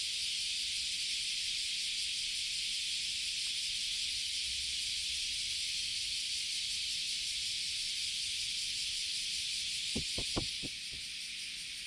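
Steady high hiss of outdoor background noise, with a quick run of four or five short low knocks near the end.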